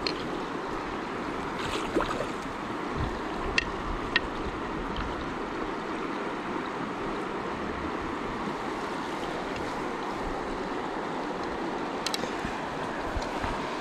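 River water rushing steadily in a fast, high current, with a few brief light clicks.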